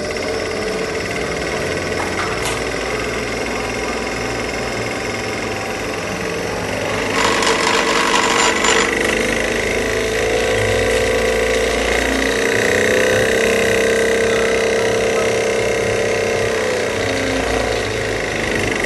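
Diesel injection pump of a Nissan YD25 being driven on a pump test bench, running with a loud, steady mechanical clatter. About a third of the way in there is a harsher hissing rattle for about two seconds, and a humming tone then sits over the run until near the end.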